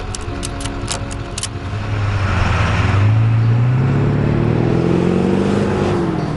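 Tow truck's wheel-lift strap ratchet clicking several times, then the tow truck's engine revving and pulling away under load with a car in tow, its pitch climbing steadily.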